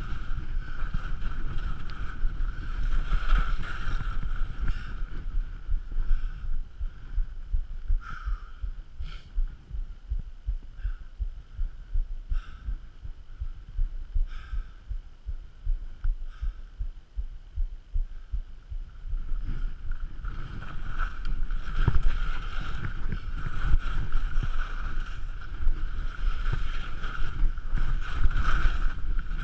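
Skis sliding and scraping over snow on a steep descent, with wind buffeting the helmet-mounted action camera's microphone as a low rumble. The scraping comes and goes with the turns. It is quieter in the middle and builds again about twenty seconds in.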